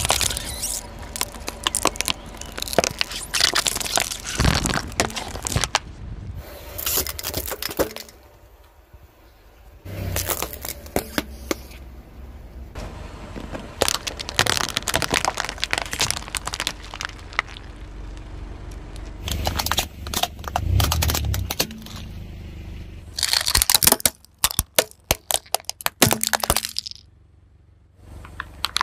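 Car tyre rolling over and crushing plastic soda bottles and ice cream cups, heard close up from a microphone on the ground: repeated cracking, crunching and breaking with a low rumble from the tyre, in several separate takes with short pauses between them. A dense run of crackling comes near the end.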